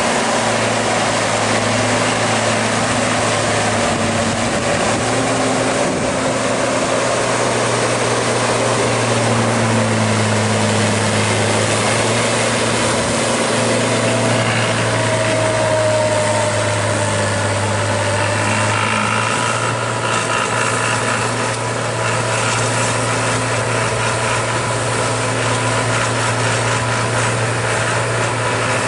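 New Holland T6050 tractor's diesel engine running steadily under load, driving a rear-mounted rotary tiller through tall vegetation. The sound drops a little about twenty seconds in as the tractor pulls away.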